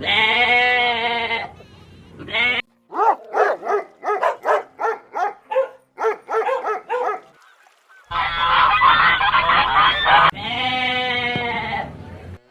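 Farm animal calls: a long wavering call, then a quick run of about a dozen short calls, then two more long wavering calls near the end.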